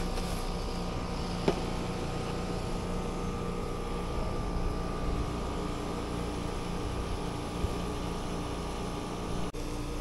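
Trane 17 SEER two-stage outdoor air-conditioning unit running, its compressor and condenser fan giving a steady hum. A single sharp click about a second and a half in.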